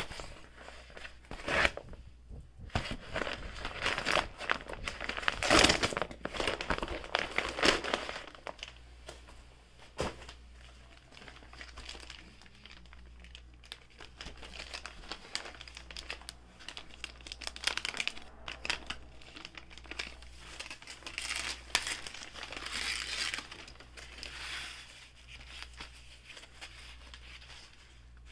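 Packaging being unwrapped by hand: a brown paper mailer bag crinkling and crumpling in loud bursts over the first several seconds, then softer rustling of a plastic sleeve and cloth dust bag.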